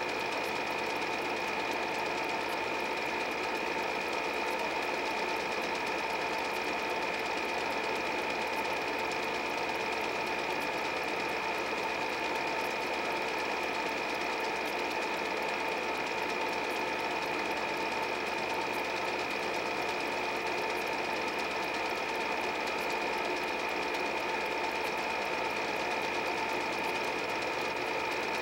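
8 mm movie projector running steadily, its motor whirring with the fast, even clatter of the film going through the gate.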